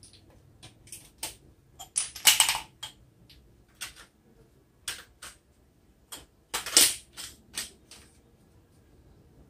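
Handheld wireless microphones being picked up and handled: a scatter of sharp clicks and knocks, with two louder bursts of clatter, one about two seconds in and another past the middle.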